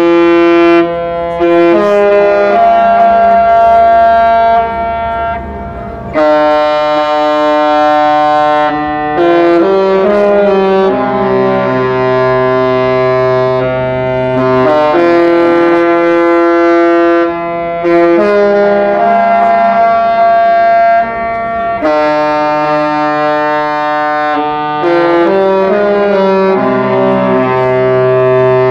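Music of slow, sustained brass- or reed-like chords, each held for a few seconds before moving to the next.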